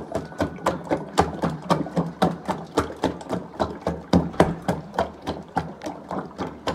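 A wooden stick beaten rapidly inside a metal pot of nkui soup, knocking against the pot and sloshing the liquid in a steady rhythm of about three or four strokes a second.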